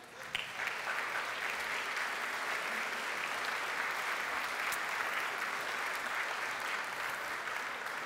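Audience applauding, rising a moment in and holding steady, easing a little near the end.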